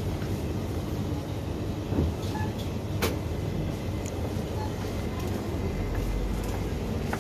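Wire shopping cart rolling over a tiled supermarket floor: a steady low rumble, with a sharp metallic click about three seconds in.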